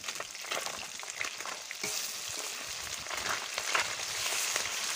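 Small mourala river fish frying in hot oil in a metal wok: a steady sizzle full of crackling pops. A metal spatula scrapes and knocks in the pan as the fish are turned over.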